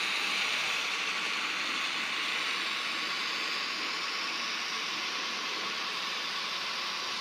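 H0-scale model freight train, a diesel shunter pulling an open wagon, rolling along the track: a steady, hissy rolling noise of small wheels on the rails.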